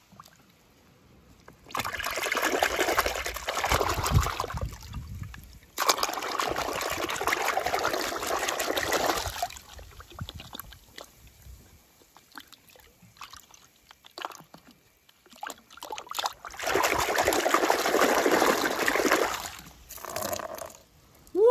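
Water sloshing, trickling and splashing in a plastic tub as a toy truck is dunked and lifted out dripping, in three bursts of a few seconds each.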